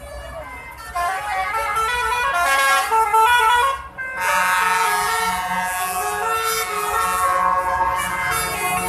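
A lorry's musical telolet-style air horn playing a tune of stepped notes, starting about a second in, with a short break just before the middle, over passing traffic.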